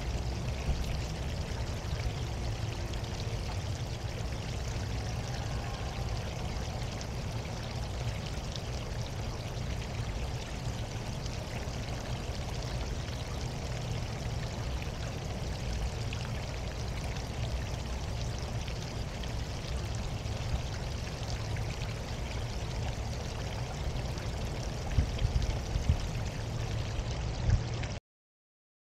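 Water pouring steadily in a stone courtyard fountain, an even rushing splash. A few sharp clicks come near the end, and then the sound cuts off suddenly.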